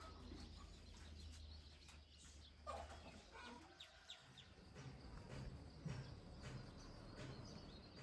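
Faint outdoor ambience with a few scattered bird calls, one a little louder about two and a half seconds in, over a low steady hum.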